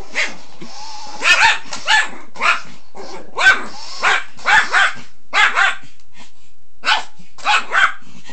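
Yorkshire terrier barking: about a dozen short, sharp barks in an irregular run, some coming in quick pairs.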